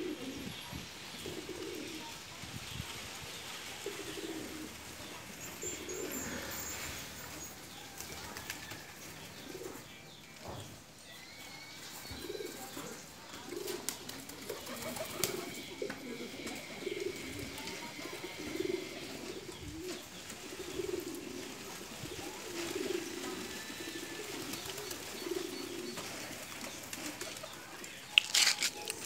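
Domestic white pigeons cooing over and over in low, rolling calls. A couple of sudden, louder noises break in near the end.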